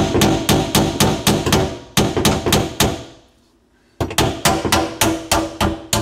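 Hammer striking the tab of a garbage disposal's metal mounting ring, the usual way to turn the ring and free the disposal from its sink mount: quick blows about four a second, each with a short metallic ring. The blows stop for about a second past the middle, then start again.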